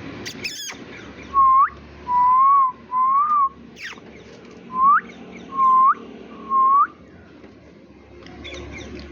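Six clear whistled notes at about one pitch, each ending in a quick upward flick. There is a short, sharp chirp just after the start and another about four seconds in.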